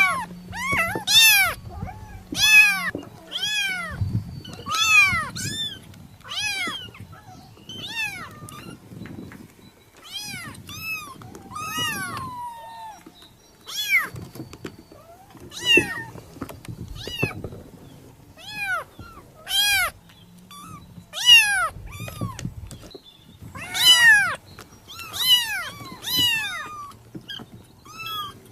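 Kitten meowing over and over: high-pitched calls that rise and fall, coming every second or two and sometimes two or three in quick succession.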